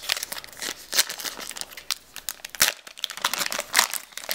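Foil trading-card booster pack crinkling and tearing in the hands as it is opened: a quick run of irregular crackles.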